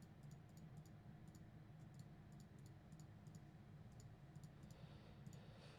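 Faint computer mouse clicks, irregular at about two or three a second, over a low steady room hum.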